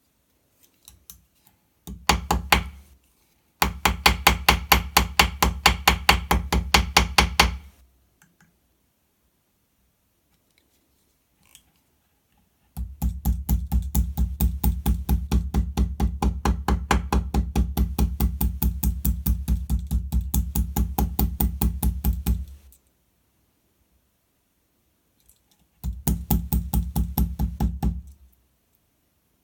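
Rapid, even light hammer taps on a Swiss Army knife blade, about four a second, in four runs with pauses between them, the longest lasting about ten seconds: the bent blade being tapped straight.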